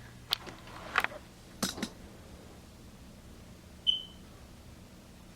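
A few sharp clicks in the first two seconds, then a single short, high electronic beep about four seconds in.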